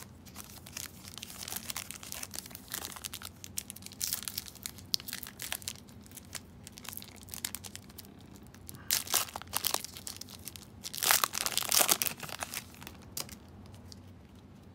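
Foil wrapper of a trading-card pack crinkling and tearing as it is pulled open by hand. The crackling comes in uneven bursts, loudest about nine seconds in and again around eleven to twelve seconds.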